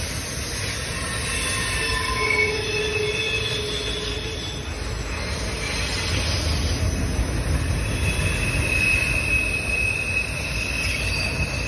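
Freight cars of a Norfolk Southern manifest train rolling past: a steady low rumble, with thin wheel squeals at several pitches coming and going.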